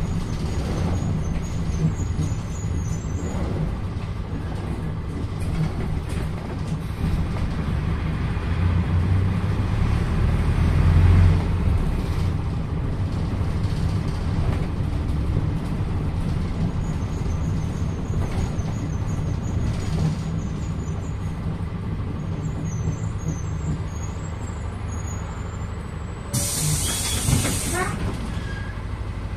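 PAZ-320402-05 bus's diesel engine running steadily as the bus drives, growing louder for a few seconds about a third of the way in. Near the end comes a sudden loud hiss of compressed air, about a second and a half long, from the bus's pneumatic system.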